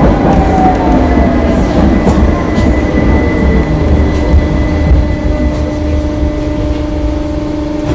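Tram running on street track with the steady rumble and clatter of wheels on rails. Its motor whine falls in pitch over the first few seconds as it slows, then settles into a steady hum.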